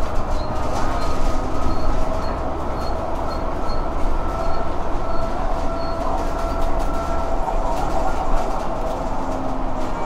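Bus under way: steady engine and road rumble with a faint whine.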